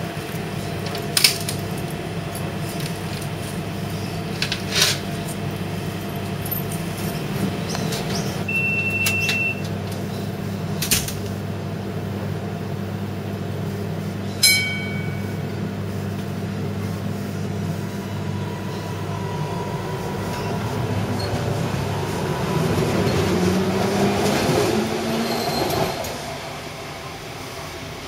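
Bombardier Variotram light rail tram standing with a steady electrical hum, with a few sharp clicks, a short high beep and a single sharp ding midway. It then pulls away, its motor and wheel noise rising with gliding tones, then dropping off suddenly near the end.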